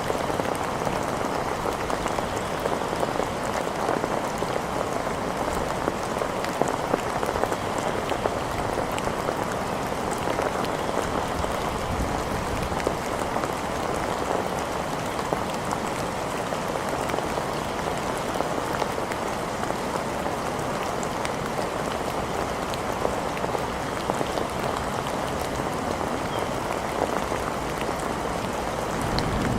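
Steady rain falling on hard surfaces: an even, dense patter of drops that holds at the same level throughout.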